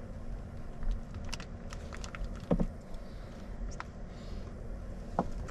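Knife cutting a block of smoked Gouda on a plastic board: scattered light clicks and taps of the blade and the plastic, with one short louder note about halfway through, over a steady low hum.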